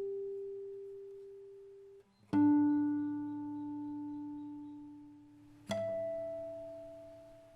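Acoustic guitar with notes plucked singly and left to ring, each fading slowly: a note already ringing is stopped about two seconds in, a fuller chord sounds just after, and another clear note near the end.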